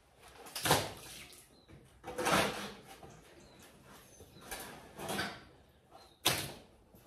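A shovel scraping over a wet concrete floor as muck is scooped up, a few separate strokes, with a sharper clatter about six seconds in as a load is tipped into a metal wheelbarrow.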